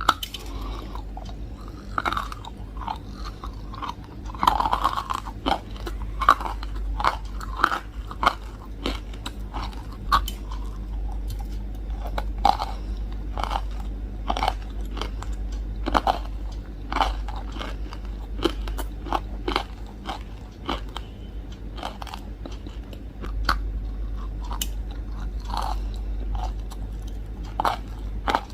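Close-up biting and chewing of hard, crunchy chunks, with many sharp, irregular crunches.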